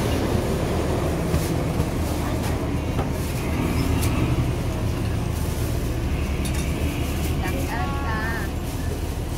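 Street-side ambience: a steady rumble of passing traffic with voices in the background and a few sharp clicks, the handling of plastic takeaway boxes and bags.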